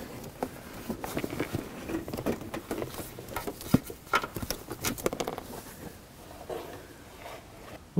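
Old hood release cable of a Honda Element being pulled through into the cabin footwell: a run of small, irregular scrapes, rustles and clicks as the cable slides past plastic trim and the body opening, with one sharper click about halfway through.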